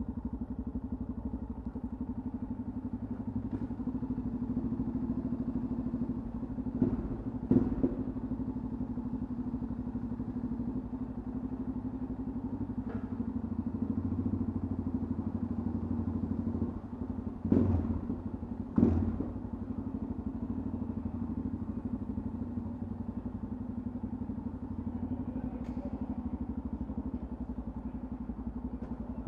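Yamaha XT660X single-cylinder four-stroke engine running steadily at low speed as the motorcycle rolls slowly along. Two pairs of loud knocks come through, about seven seconds in and again about eighteen seconds in.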